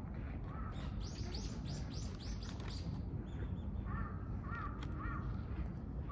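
Crows cawing, one call early and three in quick succession about four seconds in, while a small songbird sings a quick run of about seven high notes in the first few seconds, over a steady low background rumble.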